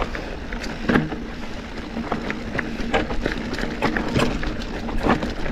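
A 100 mm cross-country mountain bike riding down over rocks: tyres rumble and crunch on the rock, and the frame and drivetrain rattle with frequent sharp knocks. Wind rushes steadily on the microphone underneath.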